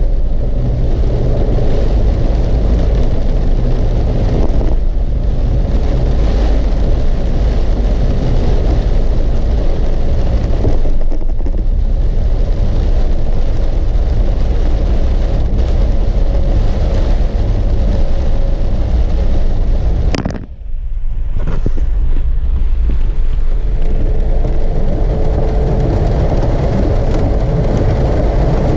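A car driving, with a loud, steady low rumble of engine and road noise that dips briefly about two-thirds of the way through.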